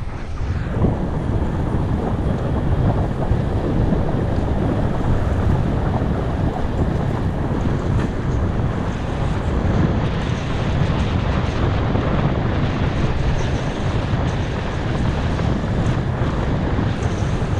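Steady wind buffeting on a helmet-mounted action camera's microphone while riding a bicycle, a loud, even rumble strongest in the lows.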